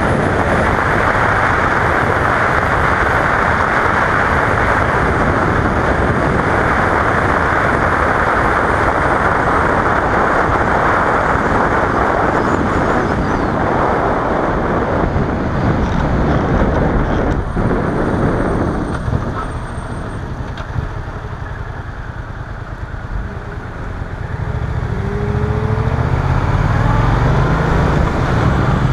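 Riding on a 2015 Yamaha FZ-07's 689 cc parallel-twin: heavy wind rush over the helmet-mounted microphone at highway speed, which eases as the bike slows. Near the end the twin's engine note climbs as the bike accelerates again.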